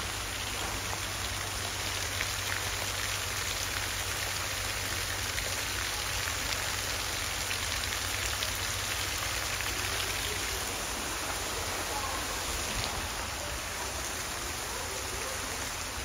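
Steady hiss of falling water, with a few faint drip-like ticks.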